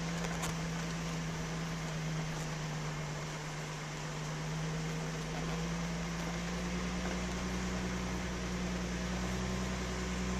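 Infiniti FX35 SUV driving slowly on a dirt forest road: a steady engine hum that rises slightly in pitch in the second half, over an even wash of road noise.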